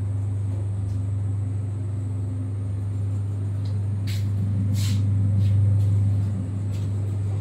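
Passenger-stretcher lift car travelling upward, heard from inside the cabin: a steady low hum that swells a little past the middle, with two sharp clicks about four and five seconds in.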